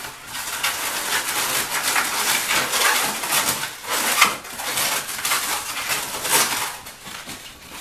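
Long latex modelling balloons squeaking and rubbing together in the hands as a small bubble on the end of a stem balloon is twisted into the petals of a balloon flower, easing off near the end.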